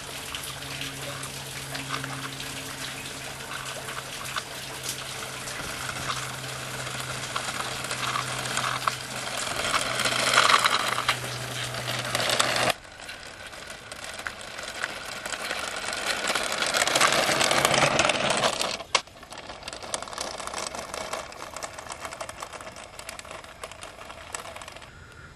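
Remote-control car's electric motor whirring and its wheels crackling over rough ground, growing louder as the car comes close, then breaking off abruptly about halfway through and again later on.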